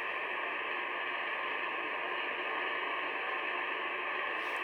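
Steady static hiss from the GE 5826 CB radio's speaker, with no station coming through.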